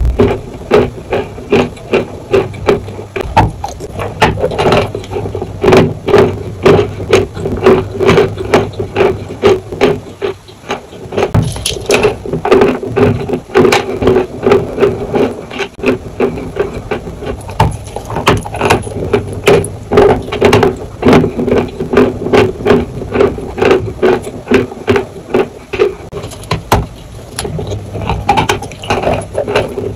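Close-miked chewing and biting of a dry chalk block: dense, crisp crunching, several crunches a second, with a short lull about ten seconds in.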